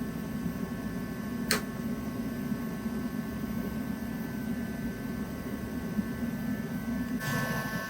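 Steady whirring hum of a 2012 GMC Yukon XL Denali's heater blower fan running. There is one sharp click about a second and a half in, and the hiss grows louder near the end.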